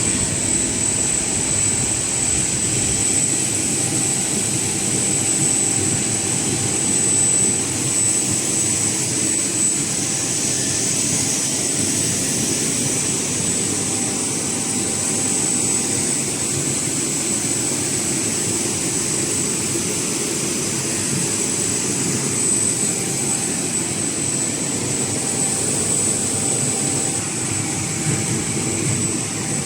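Snack pellet frying line machinery running: a steady mechanical noise with a constant high-pitched whine over it.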